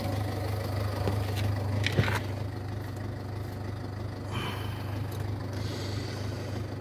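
Ford Fiesta 1.4 TDCi four-cylinder diesel engine idling steadily, with a couple of light knocks about one and two seconds in.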